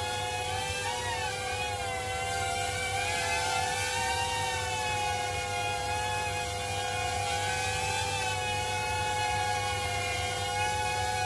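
Small XK X100 multicopter's motors and propellers whining in flight, their pitch wavering up and down as the throttle changes, over a steady tone.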